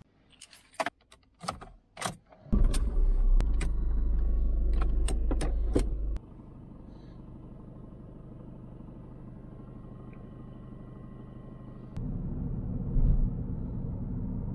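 Clicks, knocks and keys being handled as a Ford Fiesta is entered, then its engine starts about two and a half seconds in. It runs loud for a few seconds, drops to a quieter steady idle, and grows louder again near the end as the car pulls away.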